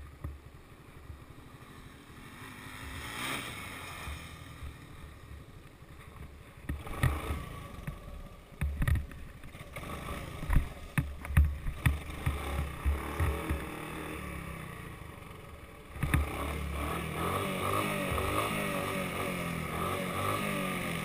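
Honda three-wheeler's single-cylinder engine running low, with scattered knocks and wind buffets on the microphone in the middle; about 16 s in the engine gets louder and runs steadily.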